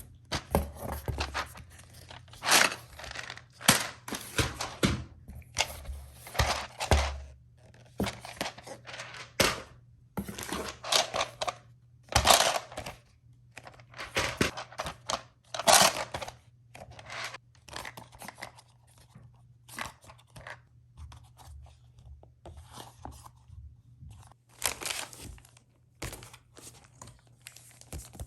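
Plastic packaging being handled, making irregular crinkling and tearing sounds in short uneven strokes.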